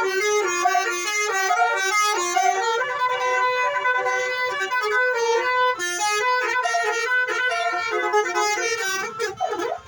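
Basuri 'telolet' musical horn on a vehicle playing a tune: several horn tones sound together and step quickly from note to note.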